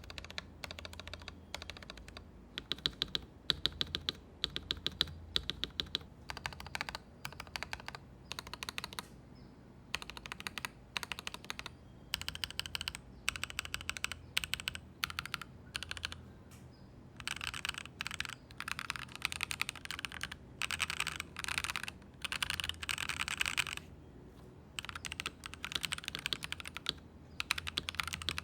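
A 75% mechanical keyboard with lubed Akko Radiant Red linear switches being typed on in fast runs of keystrokes, with short pauses between the runs.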